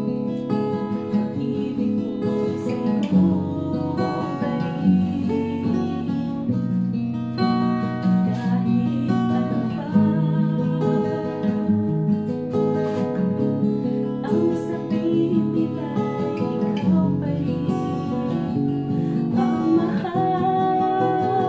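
Acoustic guitar strummed in a steady rhythm, chords changing every second or two, as accompaniment to a song.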